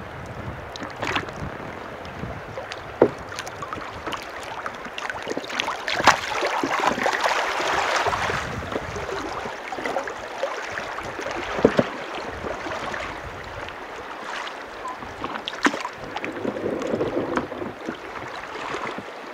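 River water splashing and lapping against a drifting raft, with a few sharp knocks.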